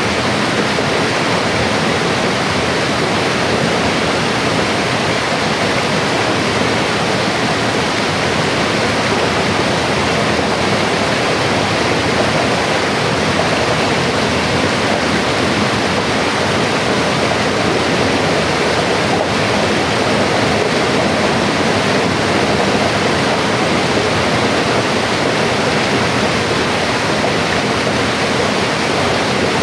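Mountain river flowing, a steady rushing of water over rocks with no change.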